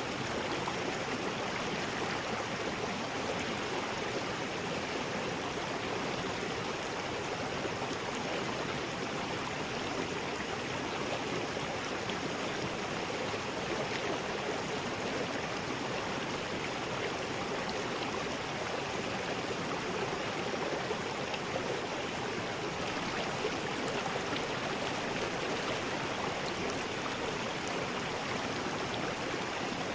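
River rapids: water rushing steadily over rocks.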